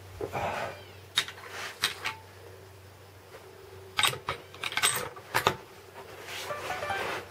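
A series of sharp clicks, two early on and a quick cluster in the middle, from cartridges and rifle being handled at the shooting bench before a shot. A brief high whine comes near the start and again near the end.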